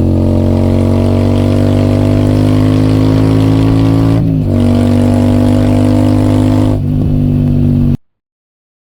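Royal Enfield Super Meteor 650's parallel-twin engine through an aftermarket AEW TE 202 exhaust, running under load with the revs climbing slowly. The note dips briefly twice, about four and seven seconds in, then picks up again, and it cuts off abruptly about eight seconds in.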